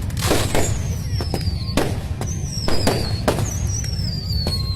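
Fireworks going off in quick succession, several sharp bangs a second, with high whistles that fall in pitch every second or so over a steady low rumble.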